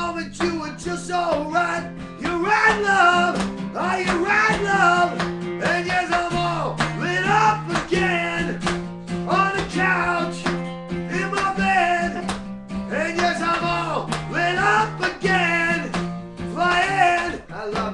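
Music: a guitar playing with a voice singing over it, the low notes held and changing every second or two.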